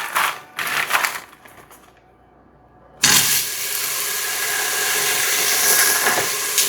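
A few light clicks and rustles, then about three seconds in a sudden, steady sizzle and crackle as a frozen onion and pepper blend hits hot olive oil in an Instant Pot on high sauté.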